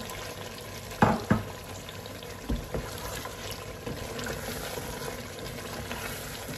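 Potato pieces going into a pot of mutton frying in oil: a few short thuds, a pair about a second in and another pair a moment later, over a steady sizzle.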